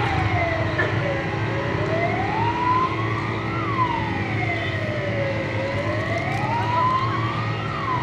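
Fire engine siren wailing, its pitch slowly rising and falling about every four seconds, over a steady low rumble.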